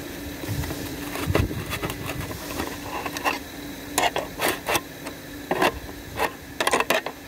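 Handling noise close to the microphone: a string of sharp knocks and clicks from a hand working in front of the camera, thickest in the second half, over a steady low hum.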